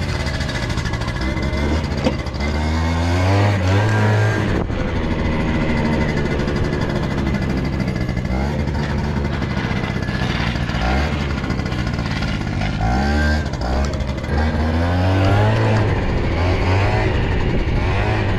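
120cc stroker two-stroke Honda Elite scooter engine revving hard under acceleration, its pitch climbing in about four separate pulls and dropping back between them.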